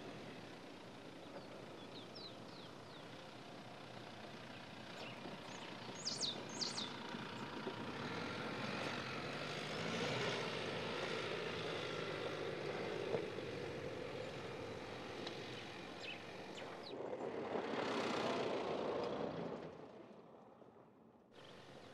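Mercedes-Benz X-Class pickup driving off-road up a rocky slope, its engine running and growing louder as it passes, swelling a second time near the end before fading away. Birds chirp a few times a few seconds in.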